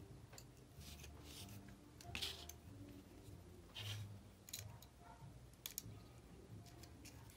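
Small clicks and scrapes of plastic and metal parts being handled as a pickup shoe is fitted into a model locomotive's motor block. A few sharper clicks come about two and about four seconds in.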